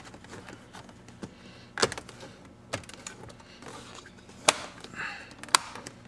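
Plastic clicks and taps as the shift boot's frame is pressed and worked into the BMW E36's centre console around the gear lever. There are a few sharp clicks, the loudest two in the second half.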